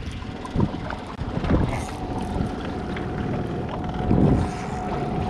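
Wind buffeting the microphone, an uneven low rumble that swells now and then, with a faint steady whine coming in about two seconds in.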